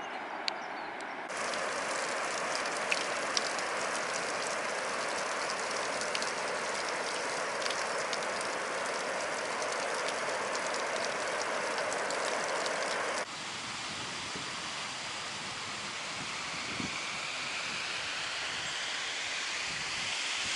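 Steady rushing roar of a large waterfall that starts abruptly about a second in and cuts off suddenly about two-thirds of the way through. A fainter steady outdoor hiss lies on either side of it.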